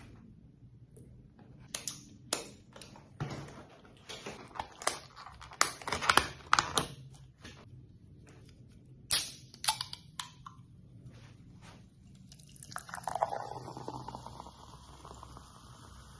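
Foam takeaway containers and food handled on the table with scattered clicks, knocks and rustles. About nine seconds in, a sharp crack fits the Coca-Cola can being opened. From about thirteen seconds, cola poured into a glass splashes and fizzes with a steady hiss as the carbonated foam rises.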